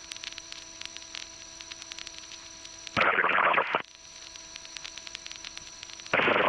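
Aircraft intercom and radio audio feed: a steady electrical hum and whine with faint rapid ticking. It is broken twice, about three seconds in and again near the end, by short bursts of loud radio static.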